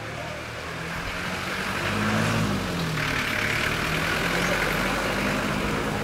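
A motor vehicle's engine growing louder as it comes closer, then running steadily, its pitch rising and falling once about two seconds in. A rushing hiss joins about three seconds in.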